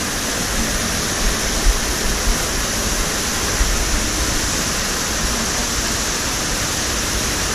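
Waterfall in a mountain torrent, water cascading down a rock face in a steady, even rush.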